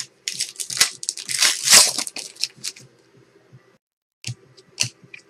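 A trading-card pack's foil wrapper crinkling as it is torn open: a dense rustle that swells for about two seconds and dies away, followed by a few light clicks.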